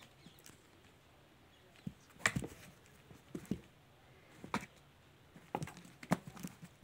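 Kitten moving about in a plastic basket: about half a dozen light knocks and scratchy clicks, spaced irregularly, from its paws and claws on the plastic and cloth.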